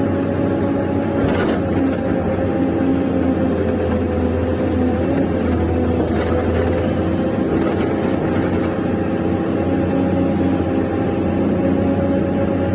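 Electric motors of a Huina radio-controlled model excavator running with a steady hum and whine, the pitch wavering briefly about five seconds in.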